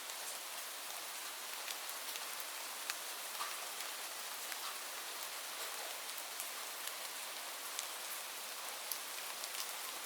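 Steady rain falling, an even hiss with the scattered ticks of single drops landing close by.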